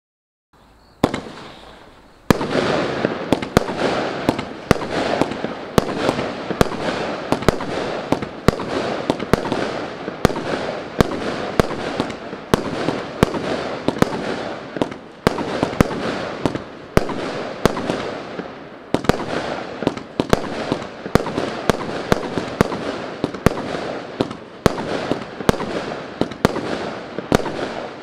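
36-shot Champion Storm firework cake firing its shots one after another, starting about a second in. The sharp bangs come roughly once a second, with a steady hiss between them.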